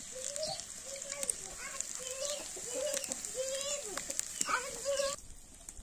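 Oil sizzling with the crackle of a wood fire, a high steady hiss with scattered snaps that cuts off suddenly about five seconds in. Above it are repeated short wavering calls.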